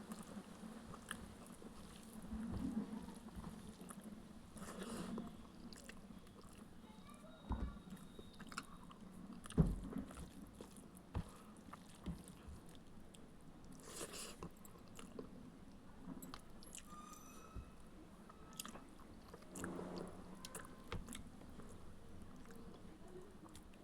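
A person chewing and eating egg and rice: faint wet mouth sounds and chewing, with scattered small clicks and one sharper knock about ten seconds in.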